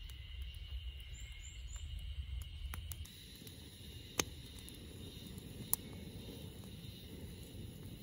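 Wood campfire burning, with two sharp pops from the fire about four and six seconds in, over a steady high drone of insects. A low rumble runs under the first three seconds.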